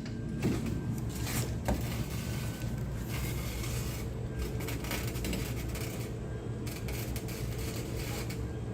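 Arc welding on a metal door: a steady crackling that drops out briefly a few times, over a steady low hum, with a few sharp clicks in the first two seconds.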